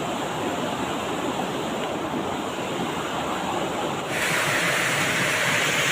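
Steady rushing of river water flowing over rocks. About four seconds in it becomes abruptly louder and brighter.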